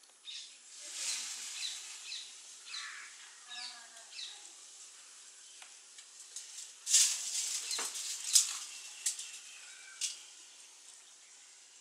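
Outdoor ambience of small birds chirping in short high calls. About seven seconds in comes a loud noisy rustle lasting a second or so, followed by a few sharp clicks.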